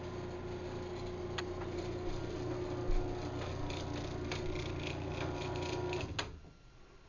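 Craftsman 1/2 hp belt-drive garage door opener running with a steady hum and whine, then stopping with a click about six seconds in.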